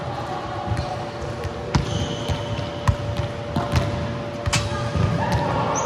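Volleyballs being struck and bouncing on a sports-hall floor: irregular sharp thuds and slaps, a dozen or so, echoing in the large hall, with a brief high squeak about two seconds in.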